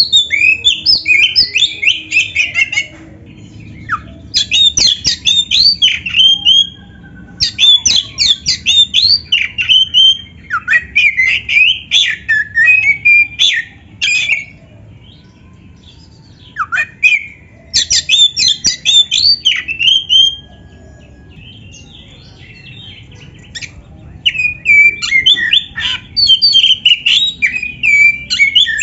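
Black-breasted oriental magpie-robin (kacer) singing a loud, varied song. It comes in runs of rapid high notes lasting two to four seconds each, broken by short pauses and two longer ones of about three seconds.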